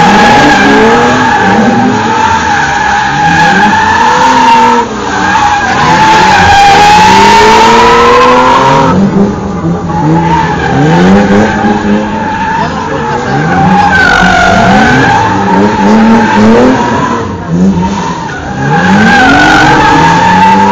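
BMW 3 Series (E36) saloon sliding sideways through a cone slalom: its tyres squeal in long, wavering screeches while the engine revs rise and fall again and again. The squeal breaks off briefly a few times as the car straightens between turns.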